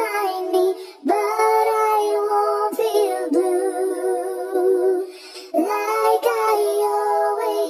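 Music: a song with a high singing voice holding long notes with vibrato, breaking off briefly about a second in and again past the middle.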